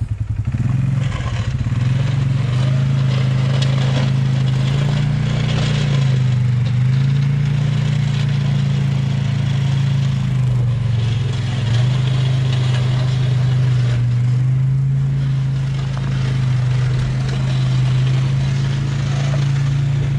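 2018 Polaris Sportsman 570 ATV's single-cylinder engine running steadily, its pitch stepping up and down a few times with the throttle, as its Boss V-XT V-plow pushes and scrapes snow along a sidewalk.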